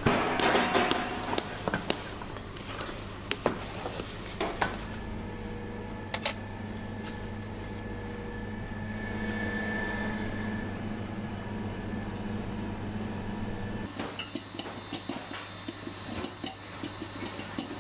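Kitchen clatter of metal pans and utensils, with scattered clinks and knocks, over a steady machine hum. The hum rises for several seconds in the middle, when the clatter stops.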